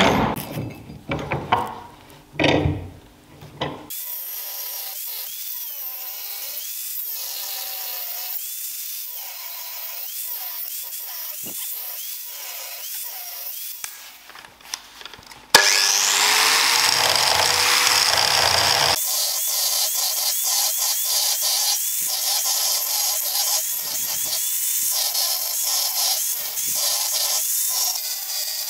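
Angle grinder with a thin cutting disc cutting the knife outline into a steel truck-spring blank clamped in a vise, in several stretches; the grinding jumps suddenly louder about halfway through. It opens with a few seconds of knocks and handling as the blank is set in the vise.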